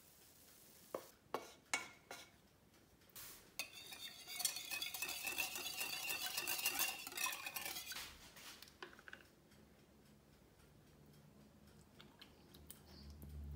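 A wire whisk beating a custard mixture in a glass dish: rapid scraping and clinking for about four seconds, starting about four seconds in. Before it, a few sharp knocks of a spoon against the ceramic cocottes.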